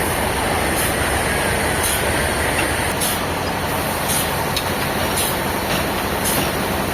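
Sawmill machinery running steadily, with a faint high hiss that pulses about once a second.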